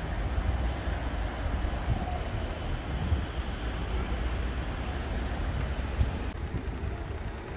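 Siemens Combino tram running, a steady low rumble with wind buffeting the microphone.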